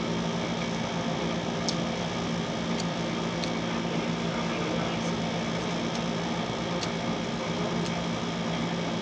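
Window air conditioner running with a steady hum and whoosh, broken by a few faint clicks.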